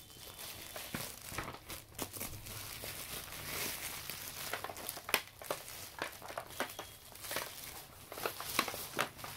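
Bubble wrap crinkling and crackling as it is pulled off a small box by hand, with irregular sharp crackles throughout.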